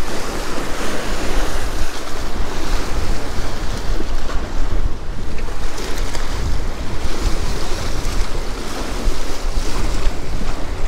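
Wind buffeting the microphone over choppy lake water lapping against a rocky shore: a loud, steady noise with no break.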